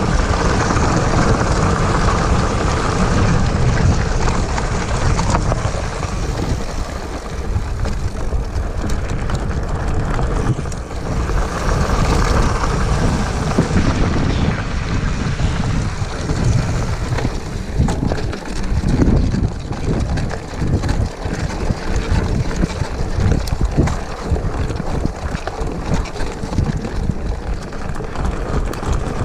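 Hardtail mountain bike rolling fast down a rocky dirt trail: tyres crunching over gravel and the bike knocking and rattling over bumps, with wind buffeting the chest-mounted action camera's microphone. The knocks come thicker in the second half.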